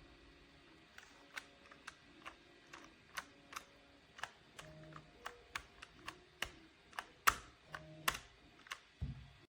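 Typing on a Dierya DK61se 60% mechanical keyboard with red linear switches: single key presses clacking at an uneven pace of about two a second, the loudest strokes about seven and eight seconds in.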